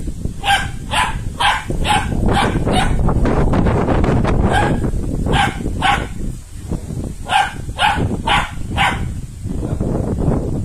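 A dog barking over and over, about two barks a second, in runs broken by short pauses.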